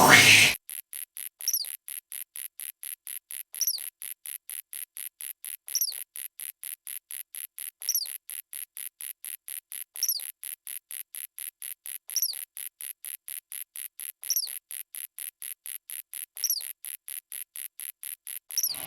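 Cricket chirping sound effect: a rapid, even high-pitched pulsing about four times a second, with a falling chirp every two seconds or so. A short loud noisy burst comes at the very start.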